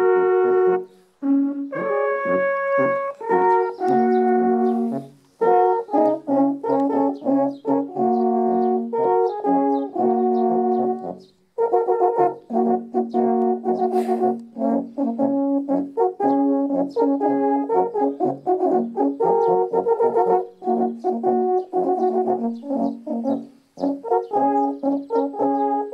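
A quartet of wooden alphorns playing together in harmony: several long held notes at once, moving in steps from chord to chord, with brief breaks between phrases.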